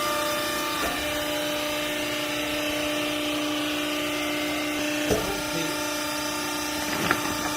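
Hydraulic baling press running: a steady mechanical hum from its pump, with a few short knocks from the machine.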